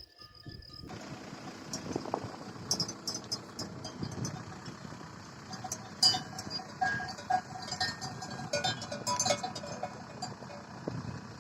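Bells on grazing livestock clanking irregularly, many short metallic clinks and rings overlapping, over a steady outdoor background.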